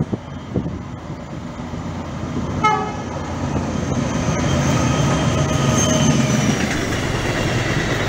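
Diesel locomotive approaching with passenger coaches, its engine growing louder, sounding its horn as a greeting about two and a half seconds in.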